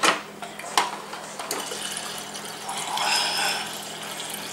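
Water running from a refrigerator door dispenser into a cup held against the lever, a steady pour. A sharp click sounds right at the start and another just under a second in.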